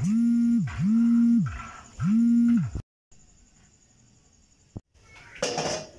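Three identical held tones, each about two-thirds of a second long, gliding up at the start and down at the end, with a short pause before the third. They cut off into a brief dead silence.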